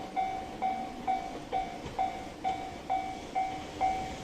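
Japanese level-crossing warning bell ringing, a repeated electronic clang struck about twice a second, signalling that a train is approaching.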